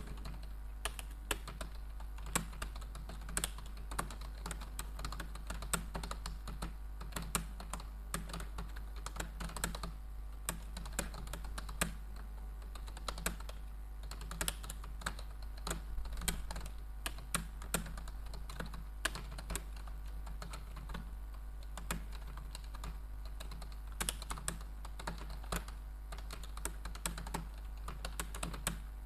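Rapid typing on a computer keyboard: a dense, irregular run of key clicks, several a second, over a steady low hum.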